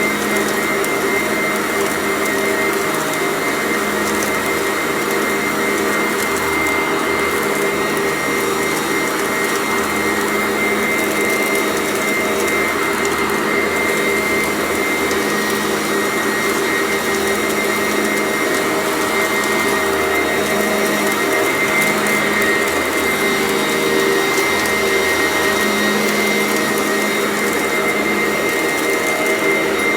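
Sanitaire vacuum cleaner running steadily with a constant motor whine, vacuuming up crunchy debris.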